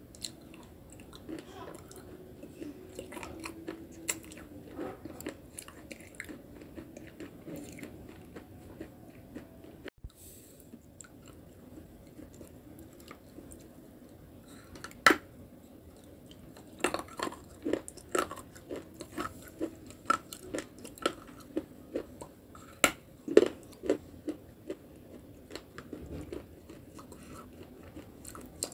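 Close-up biting and chewing of pieces of baked clay pot coated in clay paste: gritty crunching with irregular sharp cracks, loudest and most frequent in the second half.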